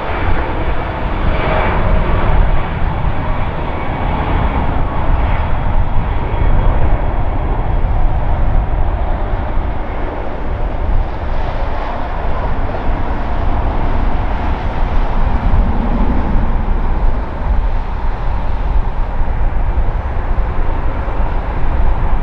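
Jet engines of a four-engined Airbus A340 at takeoff thrust during its takeoff roll: a loud, steady rumble, heaviest in the low end.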